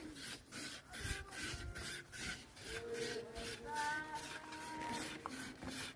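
A block of dried starch grated by hand on a metal grater, with regular rasping strokes at about three a second.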